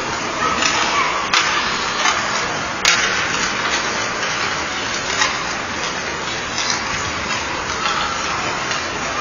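Ice hockey practice: a steady hiss of skates on the ice under a background of voices, broken by several sharp clacks of pucks striking sticks and boards, the loudest about three seconds in.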